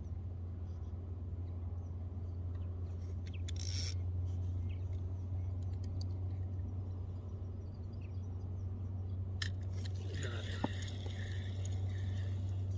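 A steady low hum, with a few faint clicks and a brief hiss between about nine and twelve seconds in.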